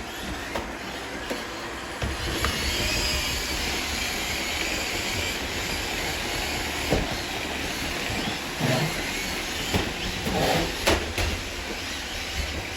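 Roomba robot vacuum running, a steady whirring hiss of its motor and brushes, with a few light knocks.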